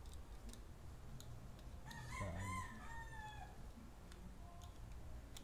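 A rooster crowing once, a call of about a second and a half starting about two seconds in and falling in pitch at the end. Faint clicks of a plastic phone holder being handled.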